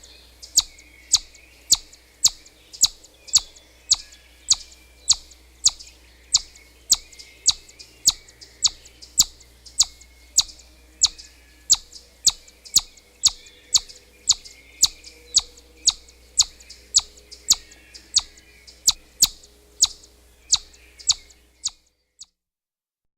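Chipmunk calling: a steady series of short, sharp, high chips, about two a second, that stops shortly before the end.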